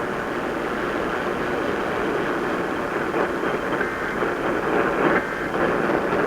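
Steady radio static hiss with no voice or alert tones, as heard on a received emergency broadcast between messages.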